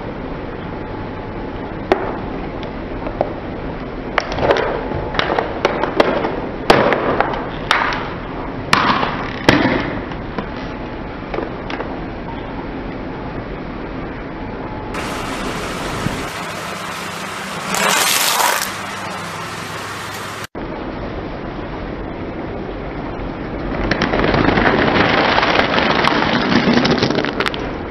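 A car tyre rolls over a plastic toy airliner, and the plastic breaks in a run of sharp cracks and snaps. Near the end a tyre crushes a bag of crunchy snacks, making several seconds of dense crackling crunch.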